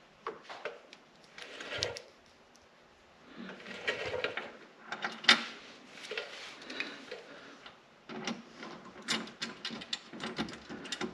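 Hand tools working metal hardware while an ice scratcher mounting bolt is fitted and tightened: scattered clicks, clinks and short rattling, ratchet-like bursts, with a sharp click about five seconds in.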